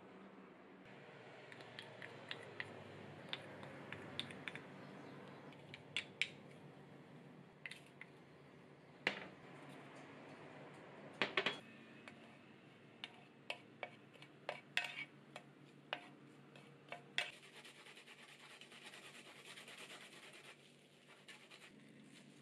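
Scattered light clinks, taps and scrapes of utensils against dishes, irregular, with a few louder clinks in the middle, over a faint steady hum.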